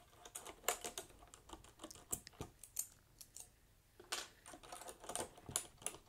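Faint plastic clicks and clacks of keycaps being wiggled off a mechanical keyboard with a wire keycap puller, the caps knocking against the keys and switches around them. The clicks come in irregular runs, with a short pause a little past the middle.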